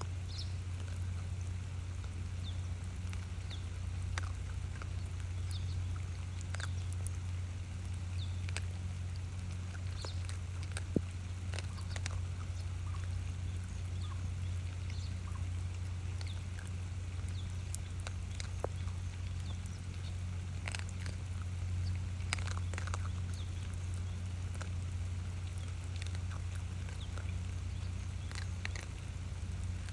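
Raccoon dogs eating: scattered short, sharp crunching clicks, over a steady low hum.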